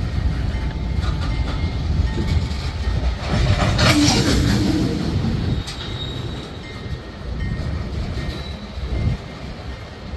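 Covered hopper cars of a freight train rolling past, a steady low rumble of wheels on rail with clickety-clack. A brief louder rush of noise swells about four seconds in.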